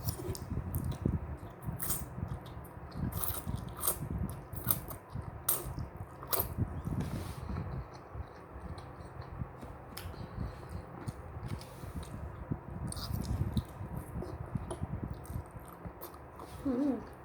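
A person eating spicy instant noodles close to the microphone: irregular chewing and mouth noises, with frequent sharp clicks.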